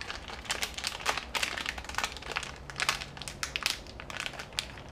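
Plastic packaging crinkling, with many small irregular clicks and rustles, as hands pick soft glow beads out of their packet.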